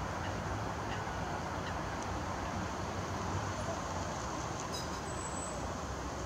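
Steady outdoor background: a low rumble of distant traffic under an even hiss, with a few faint ticks.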